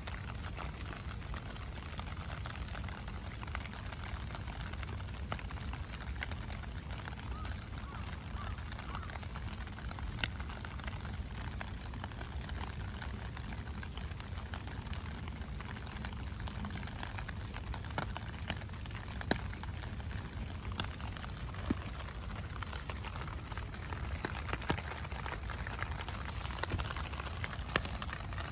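Steady heavy rain falling, with scattered louder drops ticking close by.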